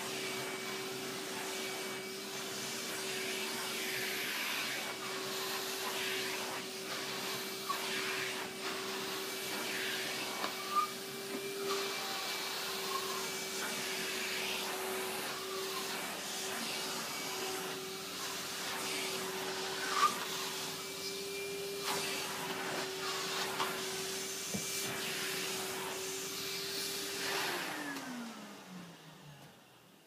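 Henry canister vacuum cleaner running on high: a steady motor whine over airflow noise, with scattered short knocks and rattles. Near the end it is switched off and the motor whine falls in pitch as it spins down.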